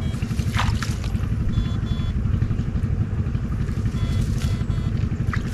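Small engine running steadily with a low, rapid pulsing.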